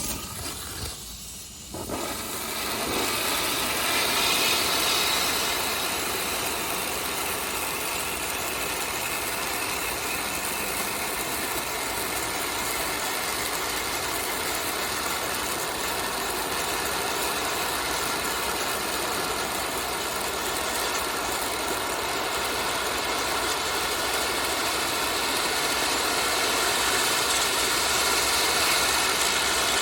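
Handheld firework pinwheel burning: a loud, steady hiss of its spark-spraying drivers, starting about two seconds in after a few short crackles and holding an even level, with a faint rising whine a few seconds in.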